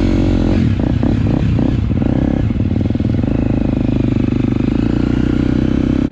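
Husqvarna FC four-stroke dirt bike engine, heard from the rider's seat, running at low revs while riding slowly. The revs rise and dip several times in the first two seconds, then hold steady.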